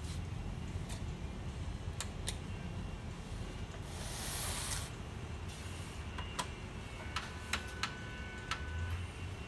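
Sharp plastic clicks from handling an HP Color LaserJet Pro MFP M181fw's covers, with a second-long rush about four seconds in as the scanner unit is lowered shut. Near the end comes a run of sharp clicks as the power plug is handled at the power strip, with a faint steady high tone under it.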